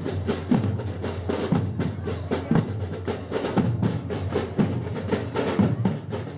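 Marching band drum section playing a marching cadence: rattling snare drums over a steady bass drum beat about once a second.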